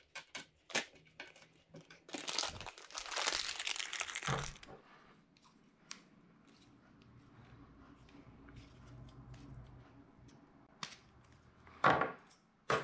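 Crinkling and rustling as something crumples in the hands, loudest for a couple of seconds early on, with a few sharp clicks of small parts being handled before it and again near the end.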